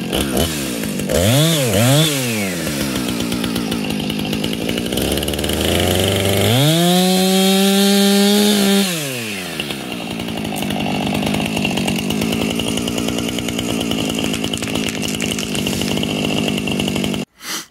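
Two-stroke chainsaw idling and being blipped twice in quick succession about a second in. It then revs up to full throttle and holds there for about two seconds while cutting brush, before dropping back to a steady idle. The sound cuts off abruptly near the end.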